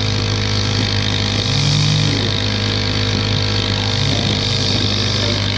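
Gas string trimmer engine running steadily as it cuts grass, rising briefly in pitch about a second and a half in.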